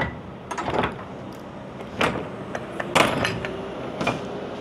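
A few separate sharp knocks and clunks, about a second apart, over a faint steady hum.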